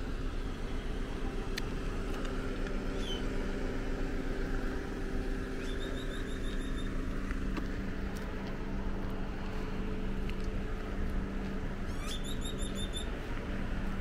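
A steady low outdoor rumble with a faint hum running through it. Twice, about six seconds apart, a short run of quick high chirps.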